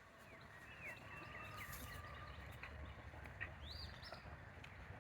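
Faint bird chirps: scattered short whistled calls over a low outdoor rumble.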